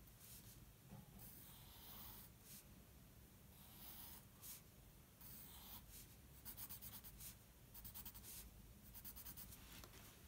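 Faint pencil strokes scratching on paper while a pattern is sketched, with a run of quick, closely spaced strokes in the second half.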